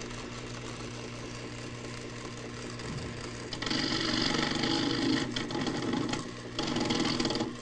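Steady mechanical whirring and clattering, like a small motor-driven machine. It grows much louder about three and a half seconds in, dips briefly twice, and dies away at the end.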